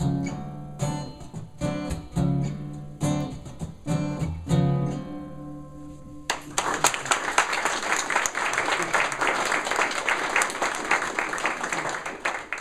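Acoustic guitars strum the closing chords of a song, and the last chord rings out and fades about five seconds in. About six seconds in, an audience breaks into applause that carries on to the end.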